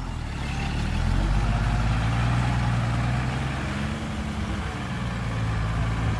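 Heavy diesel engine of a bulldozer or dump truck running steadily, rising slightly in level about a second in and then holding.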